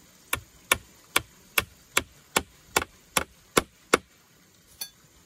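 Claw hammer driving a nail into a wooden pole: ten steady blows, about two and a half a second, then one lighter knock near the end.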